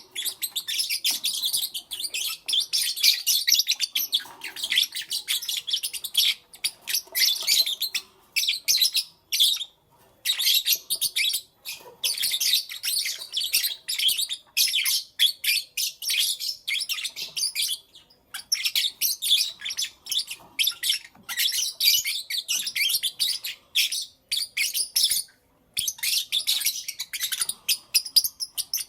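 Lovebirds chirping rapidly in shrill, high-pitched bursts of several seconds, with brief pauses between them.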